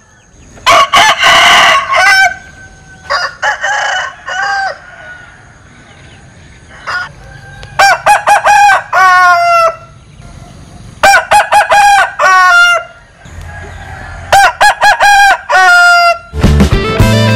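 Linh kê rooster crowing an unusual, broken crow, five times over, each crow lasting a second or two and partly stuttering in quick pulses. Music starts near the end.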